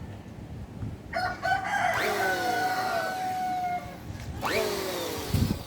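Roosters crowing: several long crows, overlapping, starting about a second in, with another near the end.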